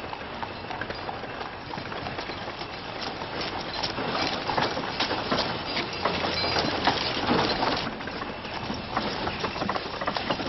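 Horses' hooves clopping and a horse-drawn coach's wheels rattling as the coach and its mounted escort pass, a busy clatter of knocks that is loudest in the middle.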